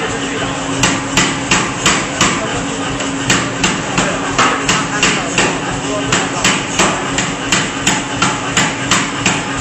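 C41-150 pneumatic forging hammer striking in runs of quick blows, about three a second with short pauses between runs, over a steady hum from its motor.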